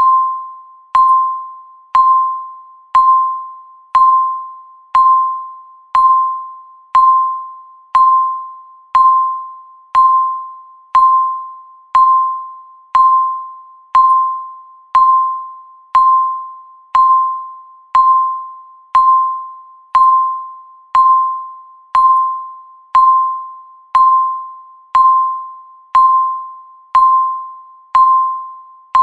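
Countdown timer beep sounding once every second, marking each second of the count. Each beep is a single clear tone that starts sharply and fades away before the next.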